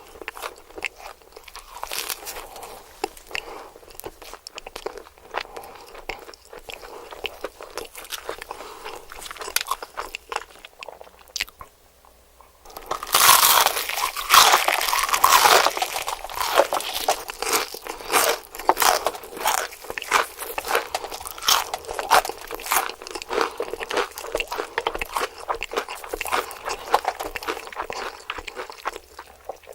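Close-miked eating of crispy KFC fried chicken: chewing and crunching, a short pause about twelve seconds in, then a fresh bite and louder, denser crunching and chewing.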